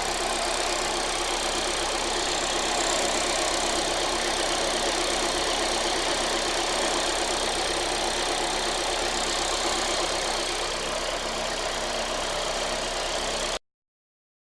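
Skoda Octavia RS TDI diesel engine idling steadily during a diesel particulate filter regeneration, with the odd noise that regeneration brings up. It cuts off suddenly near the end.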